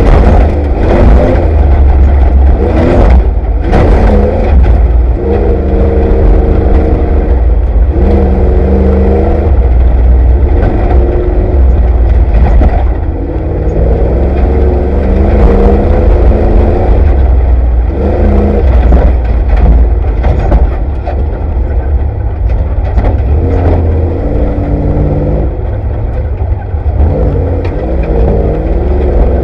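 Off-road race vehicle's engine running hard, heard from inside the vehicle, its pitch climbing and dropping again and again as it revs and shifts. A heavy low rumble lies underneath, with knocks and rattles from the rough desert course.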